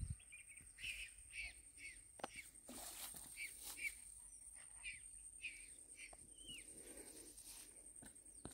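Faint birds chirping in short, repeated calls, some sliding down in pitch, over a thin, steady high whine. A few soft clicks come between two and four seconds in.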